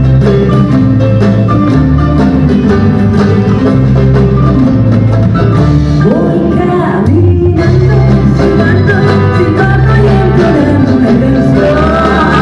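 Loud live music from an estudiantina band: strummed guitars and mandolins over bass and a drum kit, with a woman singing into a microphone in the second half.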